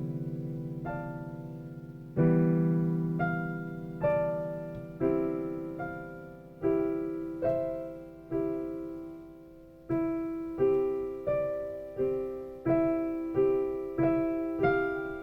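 Slow solo piano music: a melody of single notes and chords struck one after another, roughly once or twice a second, each left to ring and fade.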